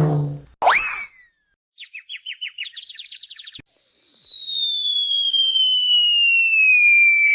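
A string of cartoon sound effects: a noisy burst cutting off right at the start, a quick whistle swooping up just before a second in, a rapid run of chirps climbing in pitch, then a long whistle sliding slowly down in pitch, the classic cartoon falling whistle, through the second half.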